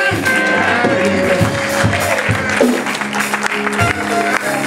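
Church music with long held chords and hand clapping.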